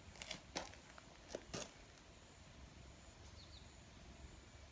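A few short, scratchy rustles of a hand stroking a tabby cat's fur, bunched in the first second and a half, then faint background with two tiny high chirps a little after three seconds.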